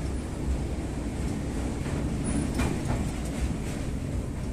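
Train running across a steel truss bridge, heard from inside the carriage: a steady rumble of wheels on the rails, with a few faint clicks in the middle.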